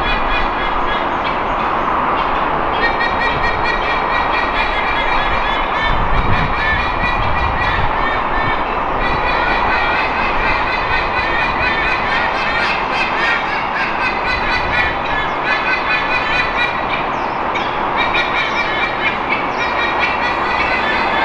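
White-bellied sea eagles giving loud, goose-like honking calls in long fast runs with short breaks: the resident pair's territorial warning at an intruding sea eagle. The calls sit over a steady roar of expressway traffic.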